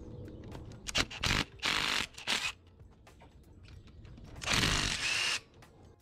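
DeWalt cordless driver with an 8 mm socket spinning out valve cover bolts, in short bursts: three quick runs in the first two and a half seconds, then a longer run of about a second near the end.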